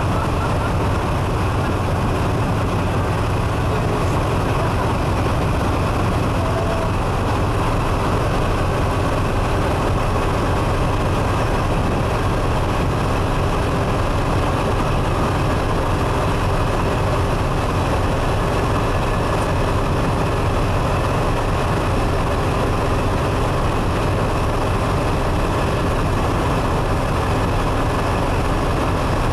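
A vessel's engine running steadily while under way, heard aboard as a loud, unbroken low hum with a rushing noise over it.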